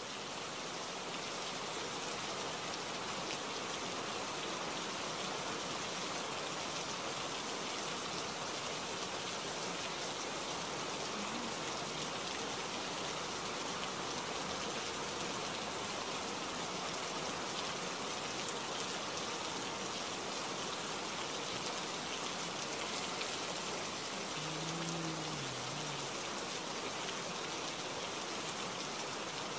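Steady rain falling, an even unbroken hiss of drops.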